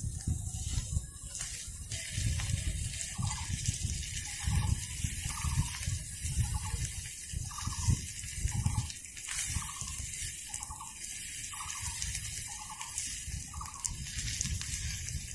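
Water dripping steadily, about a dozen drops roughly one every two-thirds of a second, each a short rising plink, over a low rumble.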